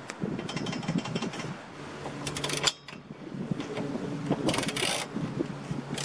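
Ratchet wrench clicking in short runs as bolts are tightened, with small metal clinks of tools. A steady low hum sets in about two seconds in.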